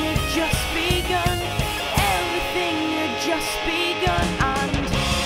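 Background rock song with a full band playing. The bass and drums drop out for about two seconds partway through.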